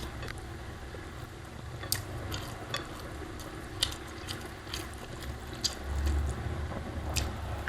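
Close-up eating sounds, chewing a mouthful of rice and omelette, with sharp little clicks of mouth or plate about once a second over a low rumble.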